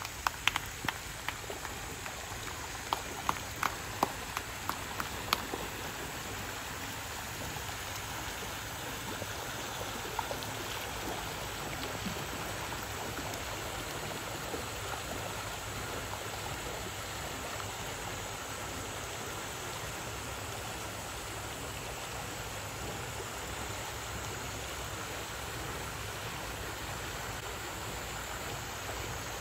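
Steady rush of running water pouring into a penguin pool. In the first five seconds or so there is a run of sharp taps, about two a second.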